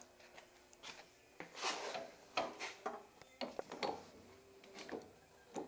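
Scattered knocks, clinks and brief scraping as metal tools and parts are handled on a lawn tractor's engine. The hits are irregular, and no motor or drill runs.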